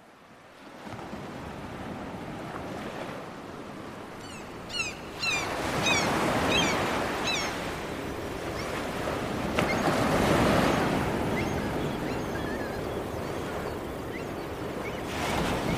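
Sea waves washing onto a beach, fading in at the start and swelling and ebbing as the waves come in. A run of short, high, falling bird calls sounds over the surf for a few seconds, a little before the middle.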